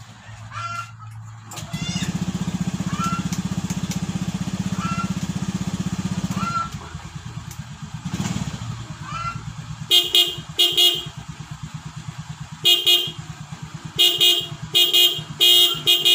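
A Honda Scoopy scooter's engine running, rising in level about a second and a half in and dropping back to idle about five seconds later. From about ten seconds in, its newly fitted Denso dual-tone horn sounds seven short beeps.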